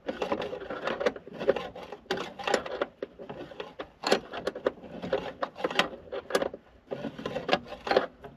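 Irregular clinks, clicks and knocks of a spanner working a stiff bolt on the accelerator pedal mounting under a van's dashboard.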